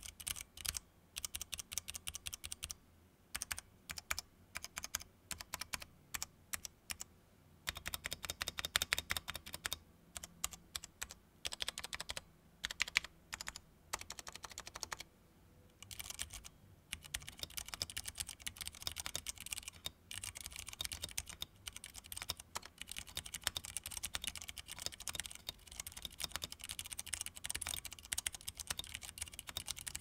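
Ducky One 3 Mini 60% mechanical keyboard with Cherry MX Clear tactile switches being typed on. Spaced single key presses come first, then quicker runs, and after a short break about halfway, fast continuous typing. The keys have an audible ping that comes from the Cherry Clear switches, not the board.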